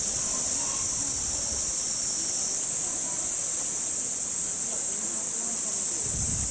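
Cicadas shrilling in a steady, unbroken high-pitched chorus.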